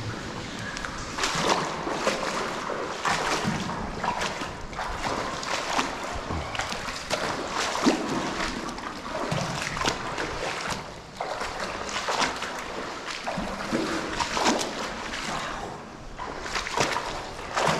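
People in waders wading through water over deep, thick silt: irregular splashing and sloshing with each heavy, labored step as boots are dragged free of the mud.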